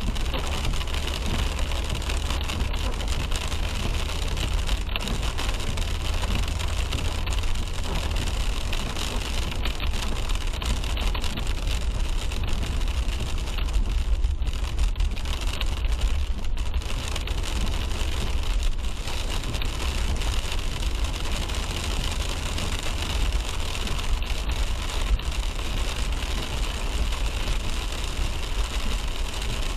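Car driving on a wet road in the rain: a steady low road-and-engine rumble with the hiss of tyres and rain.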